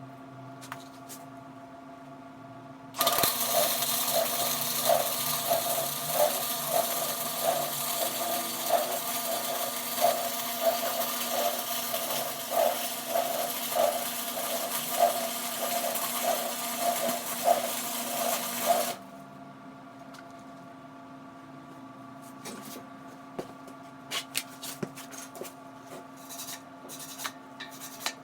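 Flux-core wire welder arc crackling and hissing steadily for about sixteen seconds as a weld bead is run on steel pipe. It starts a few seconds in and cuts off abruptly, followed by a few faint clicks.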